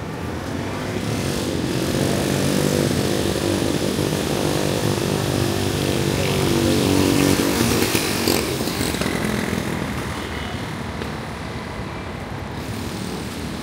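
A motor vehicle's engine passing close by. It grows louder over the first few seconds, is loudest about seven seconds in, then fades away.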